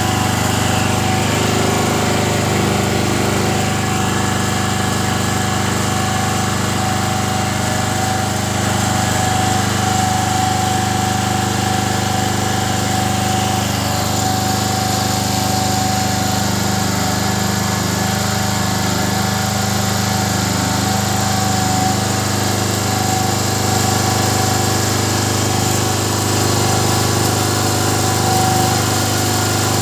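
LEEGA portable generator's engine running steadily at constant speed, loaded by glowing heating coils.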